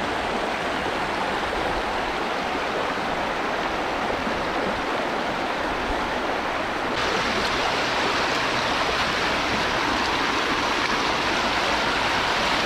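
Fast-flowing river current rushing steadily. About seven seconds in, the rush abruptly turns brighter and a little louder.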